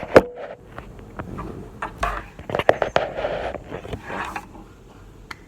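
Scissors cutting paper: a sharp snip just after the start, then scattered snips and paper rustling and scraping that die away shortly before the end.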